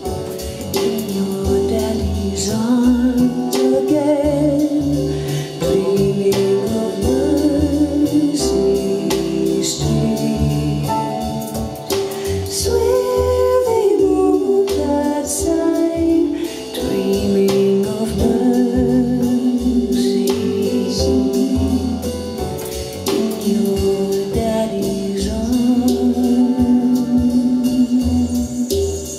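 A song with a sung melody over a bass line, played back through JMlab Mégane Carat bookshelf speakers driven by a Unison Research Unico amplifier.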